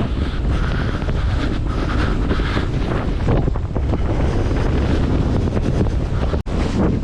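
Wind buffeting a mouth-mounted GoPro's microphone during a snowboard run through deep snow, with the board's hiss through the powder and the rider's heavy breathing close to the mic. The sound cuts out for an instant near the end.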